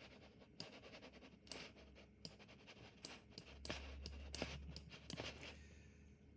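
Faint, irregular clicks and short scraping strokes of a computer mouse being clicked and dragged to draw, with a brief low hum in the middle.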